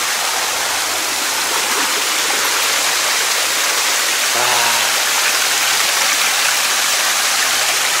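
Mountain stream running over boulders and down small cascades: a steady, even rush of water.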